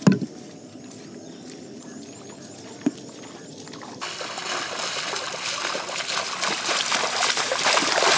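People wading and splashing through shallow lake water. The splashing starts suddenly about halfway through and builds to its loudest near the end, after a quieter stretch that opens with a single thump.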